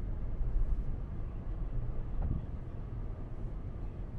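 Steady low rumble of a vehicle driving on packed beach sand, heard from inside the cab: engine and tyre noise.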